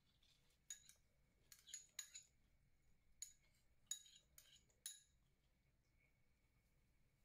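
A metal spoon clinking against a small ceramic bowl as chopped pepper is scraped out into the batter: about eight sharp, ringing clinks, some close together, ending about five seconds in.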